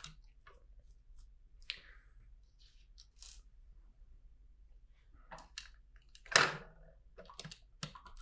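Scattered faint clicks and rattles of plastic LEGO bricks being handled and sorted, with one louder brief burst of noise about six seconds in.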